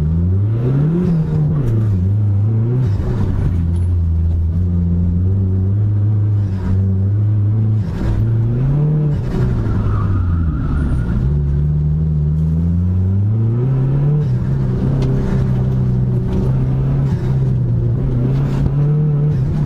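Dodge Neon SRT-4's turbocharged 2.4-litre four-cylinder engine under hard driving, heard from inside the cabin. The revs climb and drop several times, with steadier stretches between, as it accelerates and slows through an autocross course.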